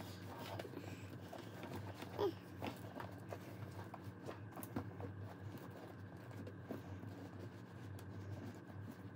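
Faint handling of a quilted leather Chanel flap bag as a fabric insert is pushed inside and the flap is closed: soft rustles with scattered light clicks and taps.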